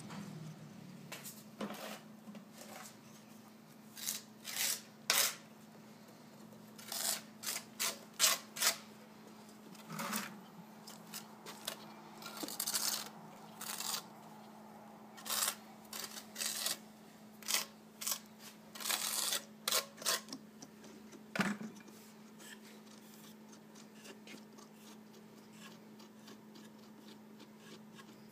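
Scattered plastic clicks and short scrapes, some in quick runs, as ATR tile-leveling caps are twisted down on their spindles and tiles are handled. They stop about three quarters of the way through, leaving a steady low hum.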